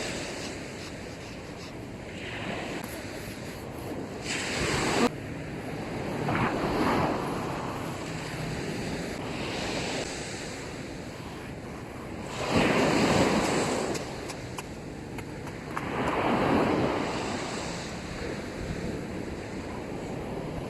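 Small sea waves breaking and washing up a sandy beach, swelling and fading in a new surge every few seconds, with wind buffeting the microphone.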